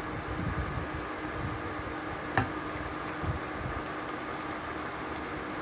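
Steady hum and hiss of an induction cooker running under a stainless pot of simmering pork stew, with one sharp click about two and a half seconds in.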